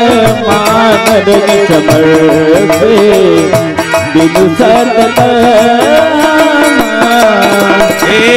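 Live devotional music: a dholak drum played under a gliding melody line.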